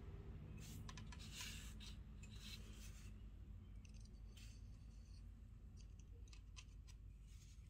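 Faint scattered clicks and crinkles of small objects being handled, over a steady low background hum.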